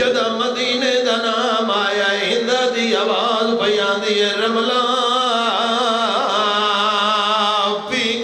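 A zakir chanting a Shia mourning lament (masaib) in one continuous, wavering, melismatic line, with a brief break near the end.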